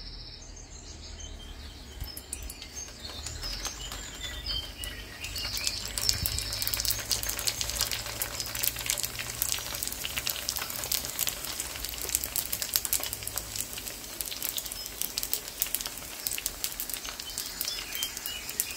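Shrimp egg rolls frying in hot vegetable oil in a pan: a crackling sizzle that starts soft and grows louder over the first few seconds, then holds steady.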